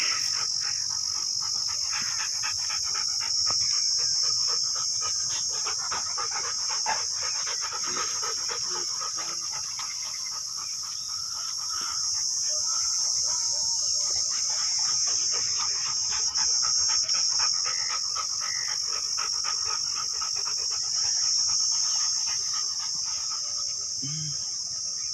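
A steady high-pitched insect chorus, with dogs panting close by, busiest in the first several seconds.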